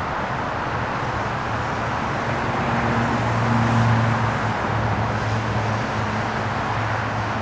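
Road traffic noise: a steady wash with a low vehicle engine hum that swells a little about halfway through, as a car passes.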